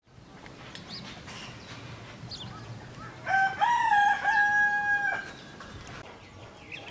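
A rooster crowing once, a single call of about two seconds beginning about halfway through, with a few faint bird chirps before it.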